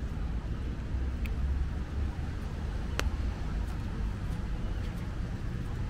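Steady low rumble of city traffic, with a sharp click about three seconds in.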